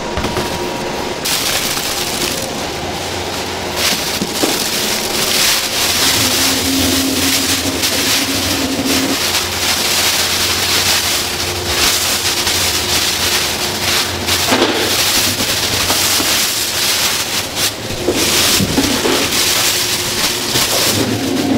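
Clear plastic bag crinkling and rustling as ground meat is emptied out of it, over the steady hum of a running machine.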